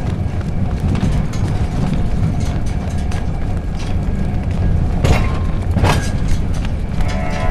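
Vintage tram running along its rails, a steady low rumble with two sharp knocks a little over five seconds in and about a second later.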